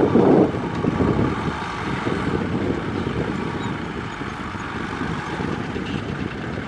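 Kubota M6040SU tractor running as it drives with a rear rotary tiller, a steady engine drone that is loudest for the first half second and then slowly fades.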